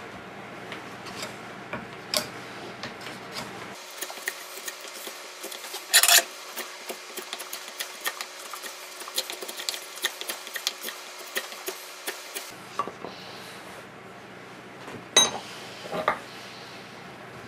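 File scraping over the end of a cherrywood hammer handle held in a vice, in many short repeated strokes as the end is shaped to fit the hammer head. There is a brief loud scrape about six seconds in and two sharp knocks near the end.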